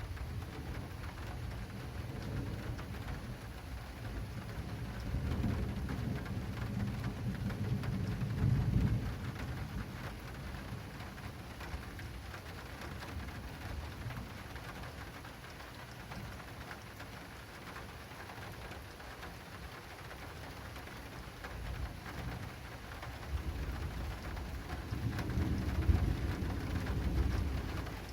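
Heavy rain drumming on an acrylic awning in a thunderstorm, with rolling thunder rumbling twice: once from about five to nine seconds in, and again near the end.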